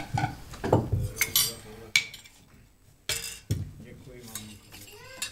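Spoons clinking and knocking against a pot and dishes, a handful of sharp clinks and clatters as food is ladled out and eaten at a table.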